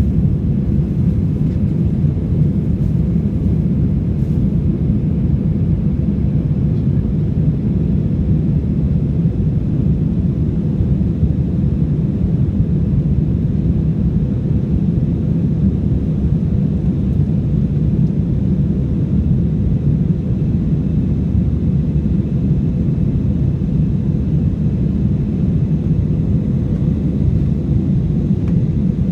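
AirAsia airliner's jet engines and airflow, a steady low rumble that holds even throughout.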